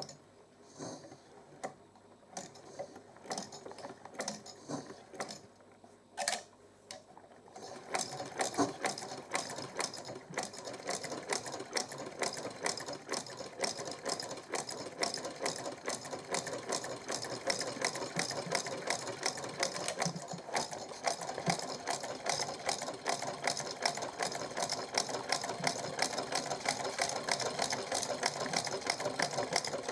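Vintage Frister & Rossmann sewing machine stitching through a folded paper surgical mask. A few slow, separate clicks come first; about eight seconds in it settles into a fast, even clatter of stitches that carries on to the end.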